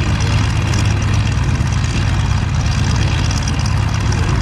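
Boeing Stearman biplanes' Continental 220 hp radial engines idling together in a steady, loud, low drone.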